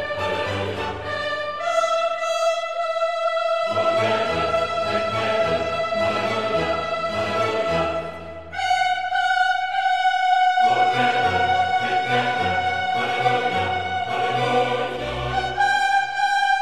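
Slow background music, a melody of long held notes, each lasting several seconds, with a new note about 2, 8 and 16 seconds in.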